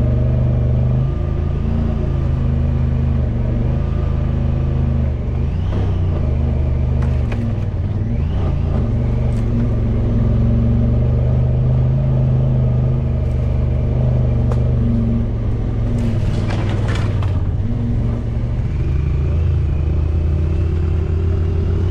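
Off-road vehicle's engine running steadily at low trail speed, heard from on board. A few brief clatters break in about a third of the way through and again about three quarters of the way.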